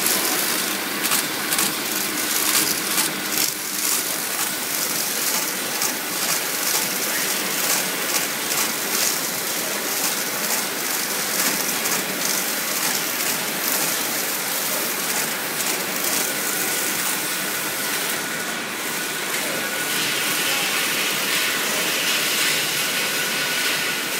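Bottle labeling machine on a PET water bottling line running: a steady mechanical clatter over hiss, with rapid clicking through the first half and a thin steady tone joining about two-thirds of the way in.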